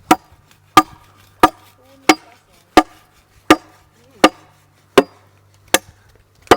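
Machete blade chopping into a sycamore log in a steady rhythm of sharp strikes, about one every 0.7 seconds, ten in all.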